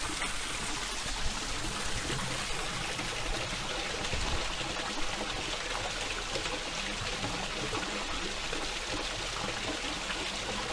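Steady rushing and trickling of running water, an even hiss without a break.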